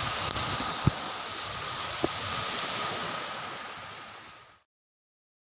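Steady rush of surf on a sandy beach mixed with wind on the phone's microphone, with two brief knocks from the phone being handled. The sound fades away and cuts to silence about four and a half seconds in.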